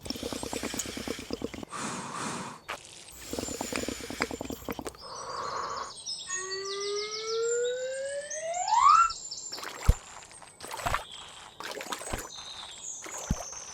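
Cartoon sound effects: two quick rattling passages, then a whistling tone that rises in pitch over about three seconds with high chirps above it, followed by four sharp knocks each with a low thud.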